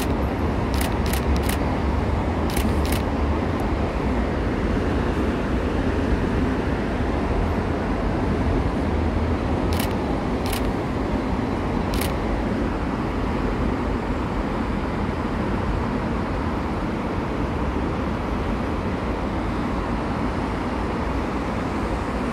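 Steady road traffic noise from busy multi-lane roads and bridge decks. A few short, sharp clicks come about a second in and again around ten to twelve seconds in.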